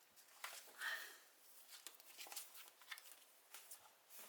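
Faint rustling and light handling of paper posters, with a few soft clicks and a slightly stronger rustle about a second in.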